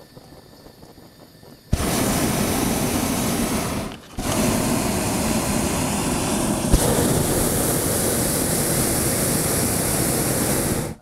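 Hot-air balloon's propane burner firing: a loud, steady blast that starts about two seconds in, breaks off briefly around four seconds, then fires again until it cuts off sharply at the end.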